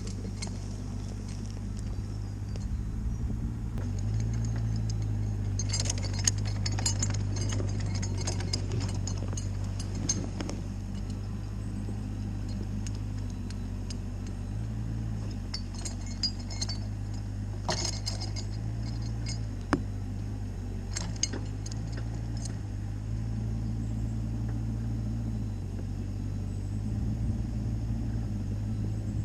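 Cat 304CR mini excavator running under load, its engine note stepping up and down several times as it drags a log. Bursts of metallic clinking and rattling come from the chains and machine several times over.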